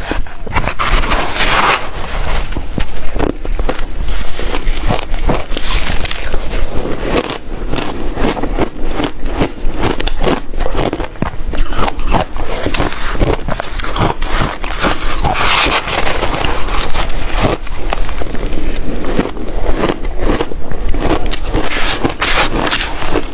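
Ice being bitten and crunched close to the microphone: a loud, dense, irregular crackle of many sharp cracks.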